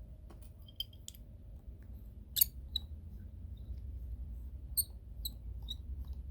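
Small precision screwdriver working the bottom pentalobe screws out of an iPhone XS Max: faint scattered clicks, one sharper click about two seconds in, and a few short high squeaks near the end.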